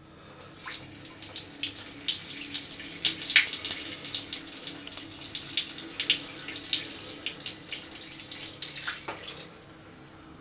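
A stream of liquid splashing into the water of a toilet bowl for about nine seconds, with a steady spattering, then stopping abruptly near the end.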